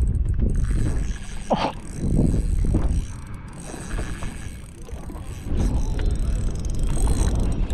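Daiwa TD Black 2500 spinning reel clicking as its drag gives line to a hooked golden trevally on a run, under a steady low rumble.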